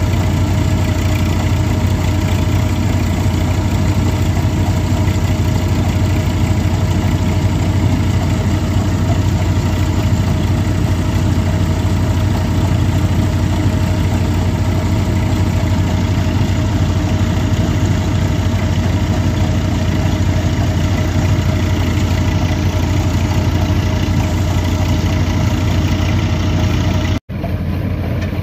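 Massey Ferguson 245 DI tractor's diesel engine running steadily under load, driving a groundnut thresher through its PTO, with the thresher's steady drone and a deep hum. The sound drops out for an instant near the end and returns much the same.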